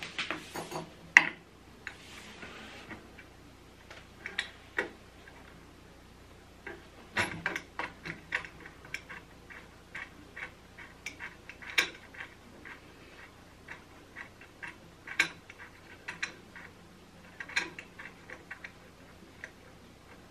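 Scattered sharp clicks and light metallic taps of parts being handled while the flatbed table's threaded support rods are threaded into their sockets and tightened, coming in loose clusters rather than an even rhythm; the loudest tap falls about a second in.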